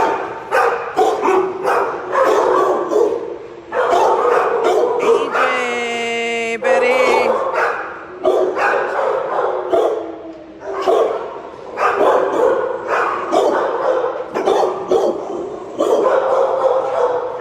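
Many shelter dogs barking and yipping in their kennels, rapid overlapping barks throughout, with one long drawn-out whining cry about five seconds in.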